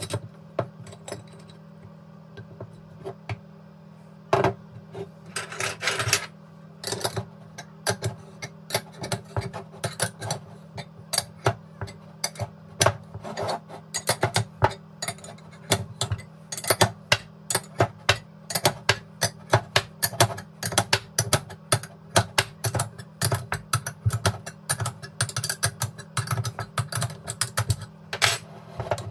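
Combination spanner turning the nut of an internal bearing puller to draw a shaft bearing out of a throttle body: sharp metallic clicks and clinks of the spanner on the nut. A few come at first, then an irregular run of about two or three a second.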